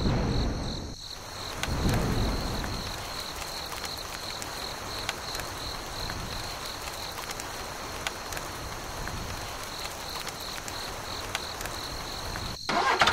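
Insects chirping in a steady high pulse, about three chirps a second, over an even hiss.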